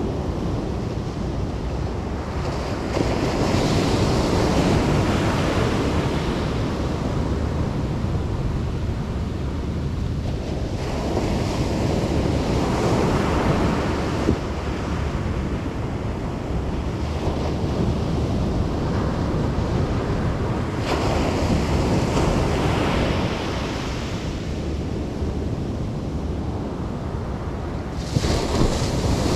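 Ocean surf breaking on the beach, four waves rising and falling roughly every eight seconds, over a steady low rumble of wind on the microphone.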